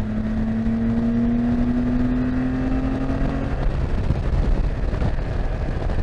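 Can-Am Spyder F3T's Rotax 1330 three-cylinder engine pulling at highway speed as the revs climb, over steady wind and road rumble. A loud hum rises slightly in pitch for the first three and a half seconds, then stops, leaving the wind and road noise.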